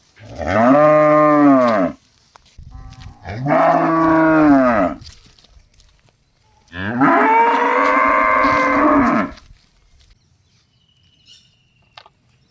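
Cow mooing three times, loud and drawn out, each moo rising and then falling in pitch, the third the longest.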